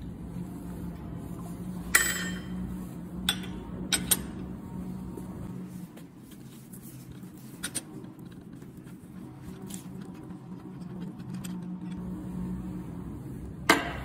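A handful of sharp metal clinks and knocks from tools against the fork steerer and head-tube parts of an electric scooter being worked on, over a steady low hum. The loudest knock comes about two seconds in, with a quick pair around four seconds and another near the end.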